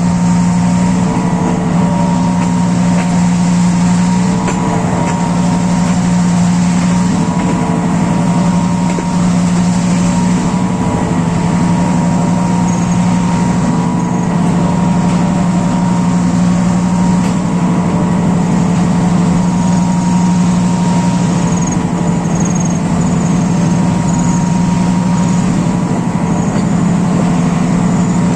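Sri Lanka Railways Class M6 diesel-electric locomotive's EMD engine running hard at a steady high throttle, a constant deep drone with a thin whine above it.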